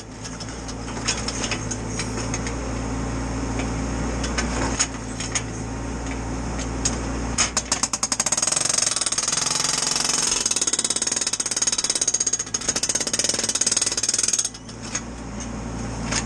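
Mini digger's hydraulic breaker hammering through concrete, breaking out around an old collapsed manhole, in runs of rapid blows with a short break near the end. The digger's engine runs underneath.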